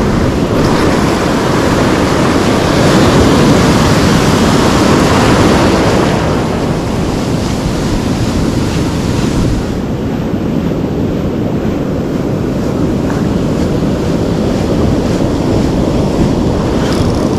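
Ocean surf breaking and washing up around the feet in the shallows, with wind buffeting the microphone. The wash is loudest for the first six seconds or so, then eases off.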